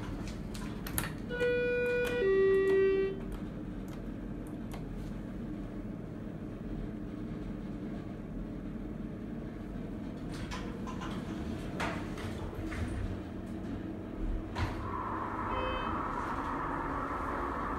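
A Schindler 330A hydraulic elevator riding with a steady low rumble, the uploader's "fairly loud" early-2000s install. About a second and a half in, a two-note elevator chime rings, high then low. Scattered clicks occur, and a hiss comes in near the end.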